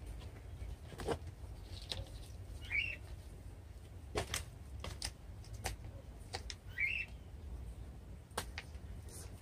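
Gloved hands handling potting soil and plastic pots, giving scattered soft knocks and rustles. A bird chirps twice, about three seconds in and again near seven.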